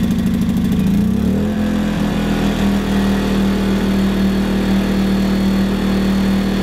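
WEN 2000-watt inverter generator's small four-stroke engine running, just after its 3-in-1 switch is moved from choke to on. For the first second or so the note pulses unevenly; it then shifts slightly in pitch and settles into a steady hum.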